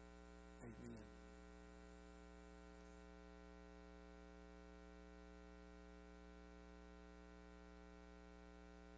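Near silence with a steady electrical hum and its overtones, and one brief faint sound just under a second in.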